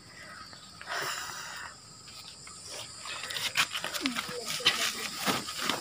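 A monitor lizard being handled on concrete: a short breathy hiss about a second in, then a run of light scrapes and clicks from its claws and the handling.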